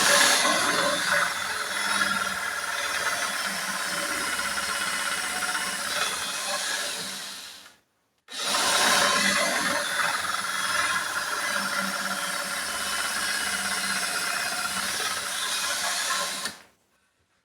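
Cordless drill turning a hand-forged drill bit, boring into a workpiece in two long steady runs of about eight seconds each, stopping abruptly between them about eight seconds in and again near the end.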